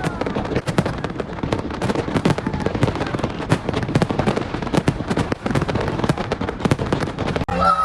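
Fireworks display: a dense, continuous crackle of many overlapping bangs and pops.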